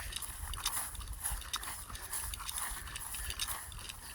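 Footsteps walking over to look: a string of short, irregular clicks and scuffs over a low rumble.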